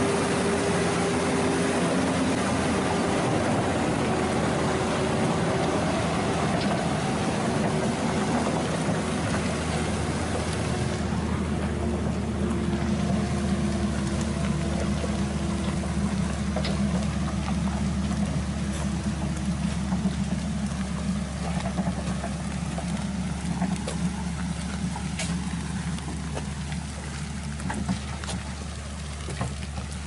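Diesel engine of a loaded logging truck running steadily under load as it crawls along, its tone changing about ten seconds in.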